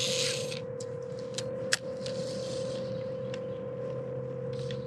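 A cast on a baitcasting reel: a brief whir right at the start as the spool spins and line pays out, then scattered light clicks during the retrieve. A steady motor hum runs underneath.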